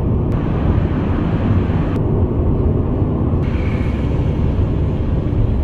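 A car driving along a road: a steady low rumble of road and wind noise that changes abruptly a few times where shots are cut together.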